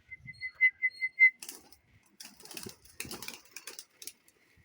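A quick run of high whistled pips, then a series of rustling flurries of pigeons' wings flapping as the birds take off and come out of the loft.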